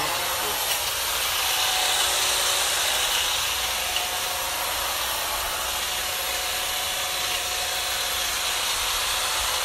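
Hedge trimmer switched on and running steadily without changing pitch, its blades cutting into a bush.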